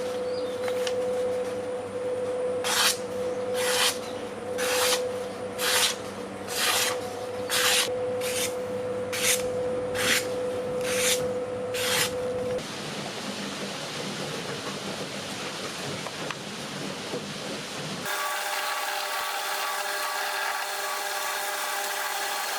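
Rasping strokes of a hand tool on the steel of a chainsaw bar being shaped into a knife, about one stroke a second, over a steady hum. After about twelve strokes they stop. A steady machine-like sound with several fixed tones takes over near the end.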